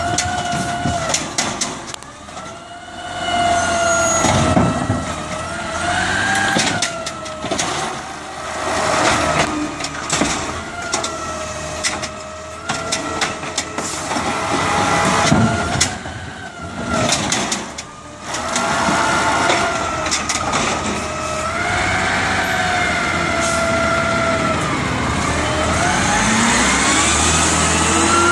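Automated side-loader garbage truck working its hydraulic arm: the engine and hydraulic pump whine up and down with each lift and dump, mixed with knocks and clatter of the cart and green waste dropping into the hopper. A rising engine note comes near the end.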